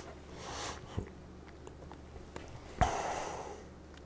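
Light handling sounds: a soft tick about a second in, then a sharper click with a brief rustle a little under three seconds in, among a few fainter ticks.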